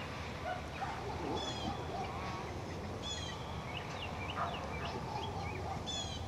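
A bird calls three times, short high-pitched calls about a second and a half apart, with smaller chirps between them, over steady outdoor background noise.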